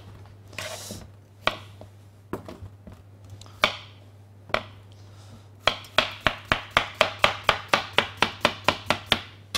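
Knife slicing a courgette into thin rounds on a chopping board: a few single knocks at first, then from a little past halfway a quick, even run of chops, about four a second. A low steady hum lies underneath.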